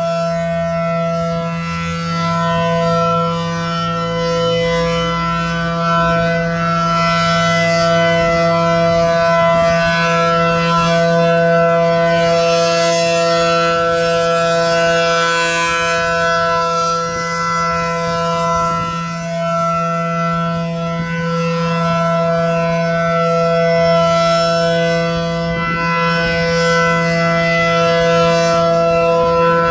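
ACA Allertor 125 electronic outdoor warning siren sounding a loud, steady tone with no rise or fall in pitch. Several notes are held together, and some of the upper ones fade out and return.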